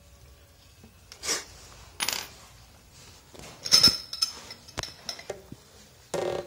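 Metal hose fittings and hand tools clinking and knocking as they are handled while a clear wire-reinforced hose is fitted onto a metal swivel: a run of separate short clinks, some ringing briefly, the loudest about four seconds in.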